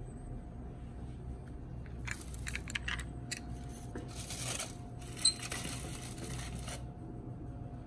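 Aluminium foil crinkling under a hand, with light clicks and clinks of a small die-cast metal toy car being set down among other toy cars on the foil. There are scattered clicks first, then two spells of crackling, with one sharper clink partway through the second.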